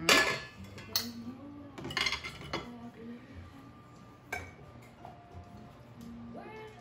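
Metal clinks and knocks at a stainless steel stand-mixer bowl as diced butter is put in, a knife in hand: a few separate sharp strikes, the loudest right at the start.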